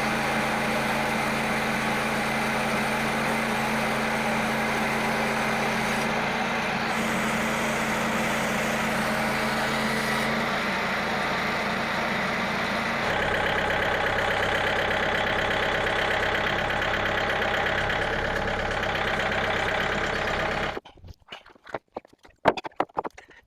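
Frontier OS27 portable bandsaw mill's small gasoline engine running steadily while the band blade saws through a log, its pitch shifting a few times. The engine sound cuts off suddenly about 21 seconds in, leaving only faint clicks and knocks.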